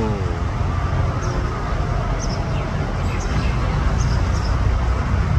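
Steady low rumble of engines and road traffic, with a bird giving short high chirps about once a second.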